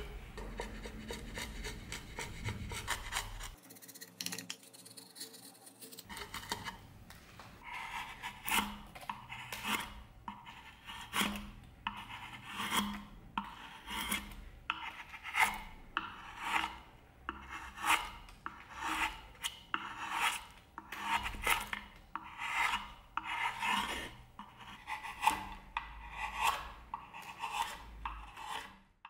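Hand chisel and gouge paring a channel into a pale wooden board, heard as repeated short scraping strokes that peel off curled shavings. The strokes start a few seconds in and come a little faster than one a second.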